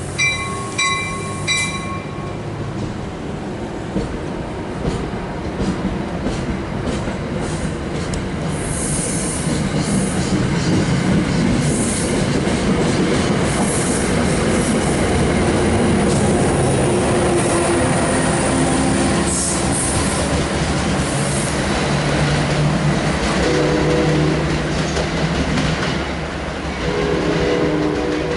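Train at a station: a horn sounds a few short blasts at the start, then a train rolls through close by, its wheels rumbling on the rails and squealing in high bursts, growing loudest about halfway and easing off. Near the end a steady low engine hum comes through.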